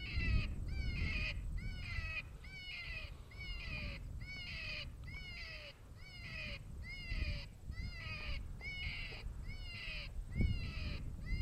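Predator call playing a high, whining animal distress cry, the same rising-and-falling note repeated evenly a little under twice a second. Wind rumbles low on the microphone underneath.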